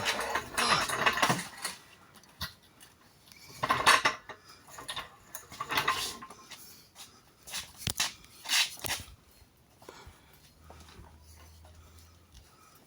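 Metal clanks and rattles from a jack being handled and worked, coming in a few separate bursts over the first nine seconds or so.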